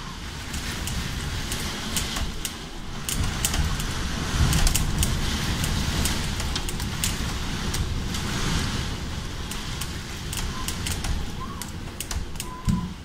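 Storm wind gusting with heavy rain: a rushing noise with a deep low rumble and many sharp taps of drops striking the window glass. It swells about a second in and eases near the end, with a single thump shortly before the end.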